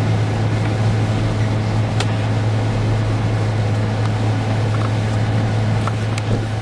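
Steady drone of a car's engine and road noise heard from inside the cabin while driving, with a constant low hum and a couple of faint ticks.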